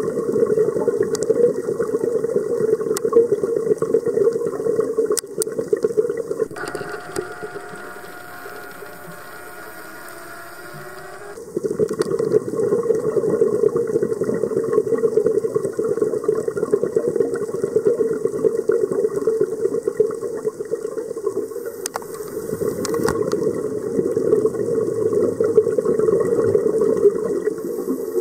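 Scuba diver's breathing through a regulator heard underwater: a rushing of exhaled bubbles that eases to a quieter hiss for about five seconds from around seven seconds in, then comes back. A few faint sharp clicks.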